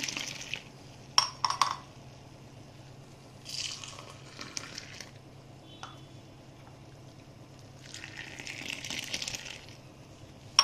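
Hot milk kashaya poured in a stream three times, each pour a second or two long, to mix the turmeric powder through it. Sharp clinks of the vessels come after the first pour and at the end.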